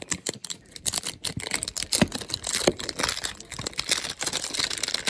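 Packaging being ripped open by hand: a dense, irregular run of crinkling, tearing and crackling.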